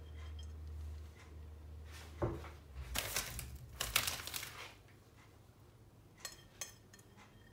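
Kitchen handling sounds while cheese is scattered over a tortilla on a griddle pan: a knock about two seconds in, then a spell of crinkly rustling, then two light ticks near the end. A low hum fades out in the first couple of seconds.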